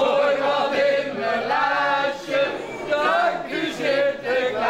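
A group of people singing together, long held notes stepping from one pitch to the next like a simple sung song.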